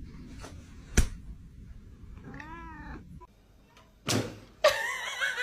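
A domestic cat meowing: a short call that rises and falls, then more wavering cat cries near the end. A sharp knock comes about a second in, and a loud rustling clatter comes shortly before the last cries.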